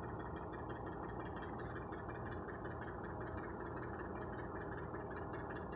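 Steady low background hum with an even hiss, unchanging throughout, with no distinct event.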